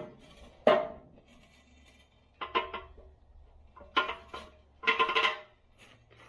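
Metal tools and parts clanking: a series of irregular sharp knocks, each with a brief metallic ring, in small clusters.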